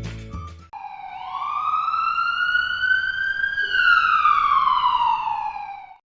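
An emergency vehicle siren sounds one slow wail: its pitch rises for about three seconds, then falls for about two and a half, and cuts off suddenly near the end. A music track fades out just before it begins.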